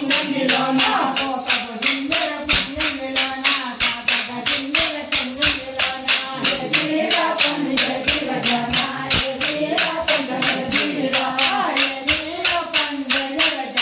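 Kolata stick dance: short wooden sticks clacked together in a steady rhythm, about three strikes a second, with the dancers' voices singing along.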